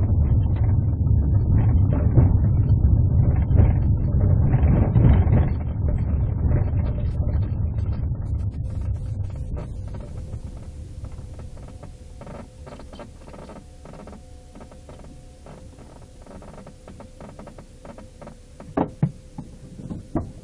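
Patrol car rolling slowly along a dirt driveway, heard from inside the car: a low rumble of tyres and running gear that fades over the first ten seconds or so as the car slows to a stop. A faint steady hum remains, with a couple of sharp knocks near the end.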